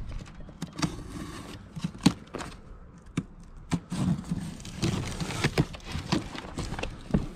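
A cardboard box being slit open and handled: scattered taps and clicks, then cardboard flaps rustling and knocking from about four seconds in.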